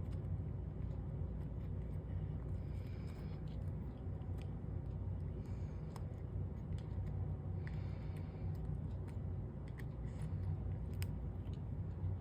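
Steady low hum under scattered light clicks and a few short scrapes as small copper-foiled glass pieces are handled and shifted into place.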